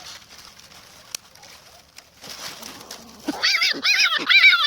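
Hedgehog squeaking: after a few seconds of faint rustle, a run of high-pitched squeals starts near the end, each rising and falling in pitch, about three a second and getting louder.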